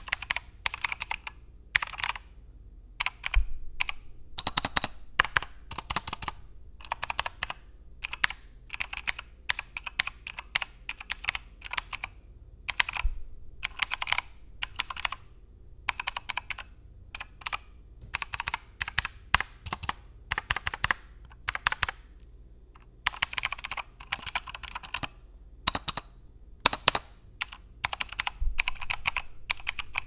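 Typing on a computer keyboard: irregular runs of quick key clicks broken by short pauses, with a few heavier thuds among them.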